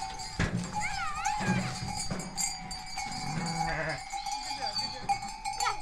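Bells on a moving flock of sheep, clanking and ringing continuously as the animals walk out of their pen.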